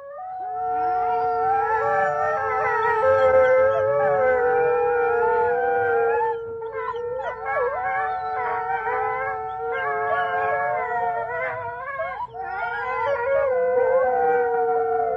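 Grey wolves howling in chorus: several long, steady howls at different pitches overlap, with brief lulls about six and twelve seconds in.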